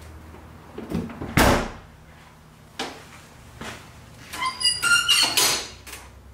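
Pickup truck tailgate shut with a loud thunk about a second and a half in, followed by a few lighter knocks. Near the end, a quick run of metallic clanks with a ringing squeak as the all-steel 1UP USA hitch bike rack, carrying a mountain bike, is tilted back up and latched upright.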